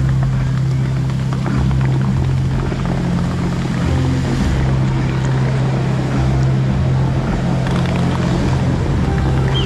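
Dubai Fountain show: music from the outdoor loudspeakers holding a long, loud low note, mixed with the rushing hiss of the lit water jets as they shoot up.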